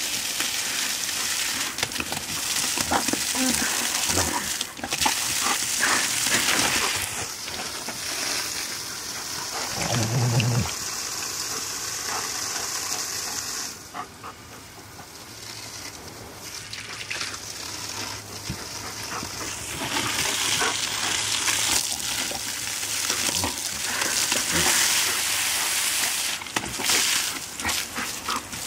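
Spray from a garden hose hissing onto grass as a German Shepherd snaps at the jet. The spray drops away for several seconds mid-way, then returns. About ten seconds in, the dog gives a short, low vocal sound.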